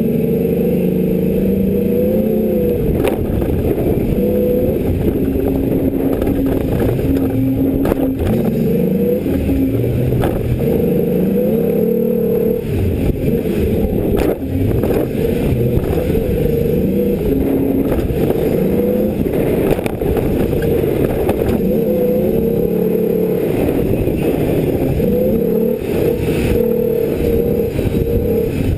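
Ford Ranger race truck's engine revving hard and easing off over and over, its pitch rising and falling as it is driven around a dirt course with jumps. Occasional knocks and clatter come from the truck over the bumps.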